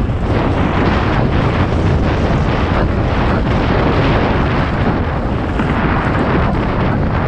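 Wind rushing over the microphone and mountain-bike tyres rumbling on loose dirt and gravel at speed, with frequent short jolts and rattles from the rough trail.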